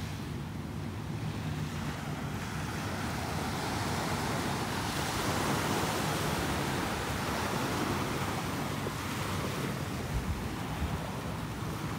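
Small ocean waves breaking and washing up a sandy beach: a steady surf wash that swells around the middle, with a couple of low bumps on the microphone near the end.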